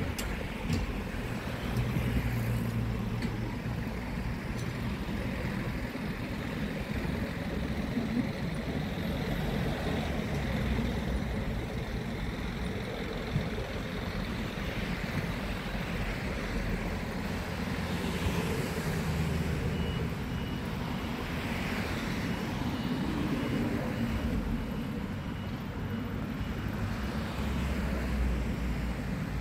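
Road traffic on the roads either side: cars passing in a steady wash of engine and tyre noise that swells as vehicles go by. A faint, evenly repeated high beep joins in the second half.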